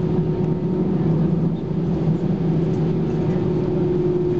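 Airbus A320-214's CFM56-5B engines running at low taxi power, heard from inside the cabin: a steady drone with a low hum and a steady mid-pitched whine over airflow noise.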